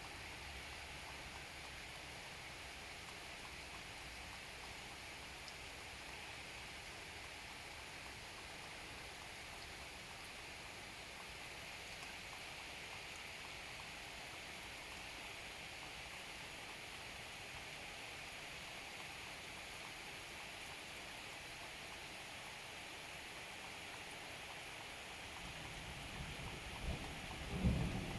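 Steady rain falling, an even hiss. In the last few seconds a low rumble of thunder swells and peaks just before the end.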